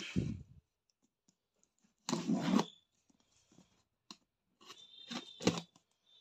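Cardboard carton being opened by hand: a short scrape of cardboard about two seconds in, a few light ticks, then a cluster of quick scraping and tearing sounds near the end.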